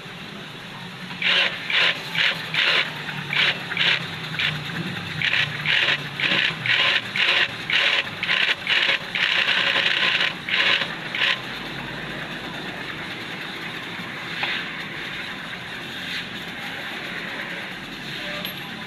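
Rhythmic scraping strokes, about two a second, for about ten seconds, then a steadier, quieter rubbing noise.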